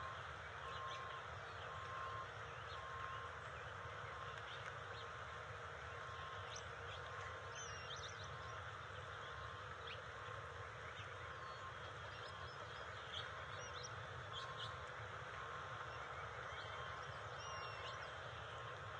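Open-air nest ambience: a steady background hiss with many short, high bird chirps scattered through it, and a faint tone pulsing on and off in the background.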